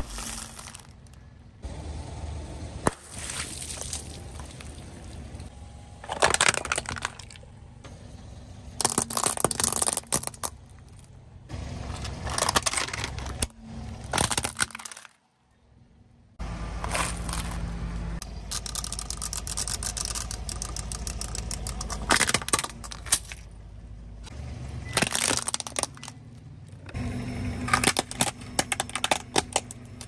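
A car tyre rolling slowly over small plastic toys and a foil snack packet on concrete, crushing them in a series of separate crackling, crunching breaks, over the car's low steady engine hum.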